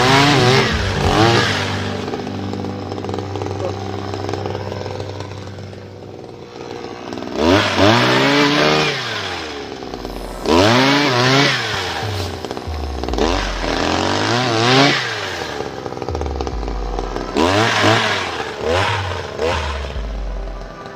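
Small engine of a motorized oil palm harvesting pole, idling and revved up again and again, about ten times, each rev rising and falling back within a second or so.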